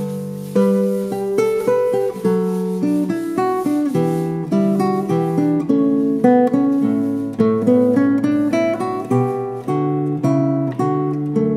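Background music: acoustic guitar picking a melody over plucked chords, with notes changing every fraction of a second.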